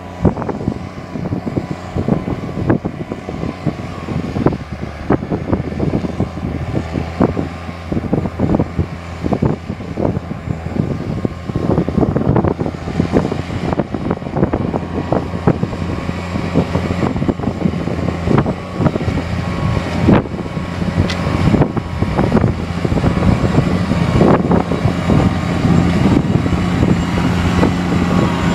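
Case IH 285 tractor's diesel engine running under load as it pulls a disc harrow through ploughed soil: a steady drone that grows louder as the tractor comes closer in the last few seconds, with many short knocks scattered through it.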